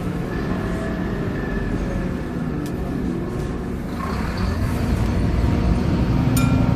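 Scania K230UB single-deck bus under way, heard from inside the passenger saloon: a steady low engine and drivetrain rumble that grows louder about four and a half seconds in. A short sharp click near the end.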